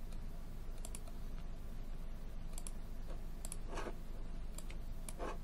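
Several soft, scattered clicks from working a computer, over a faint steady low hum.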